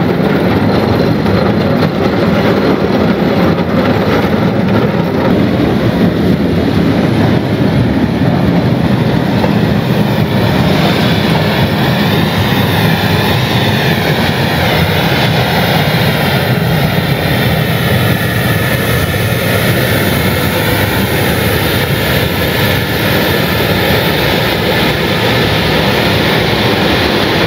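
165,000-pound tracked rock trencher sawing through rock: loud, steady machine noise from its diesel engine and cutting chain. A faint wavering whine joins in about ten seconds in.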